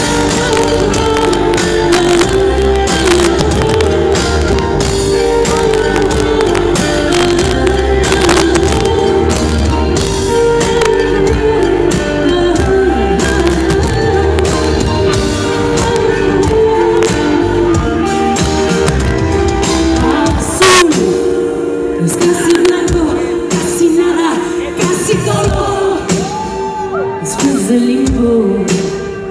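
Live band music heard through the PA: a woman singing into a microphone over electric guitar, keyboards and drums. The sound thins out after about twenty seconds.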